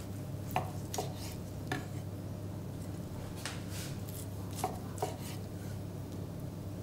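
Kitchen knife slicing through a stuffed rolled rabbit saddle, the blade knocking sharply on the wooden cutting board a few times in two groups, with a scraping stroke between them, over a steady low hum.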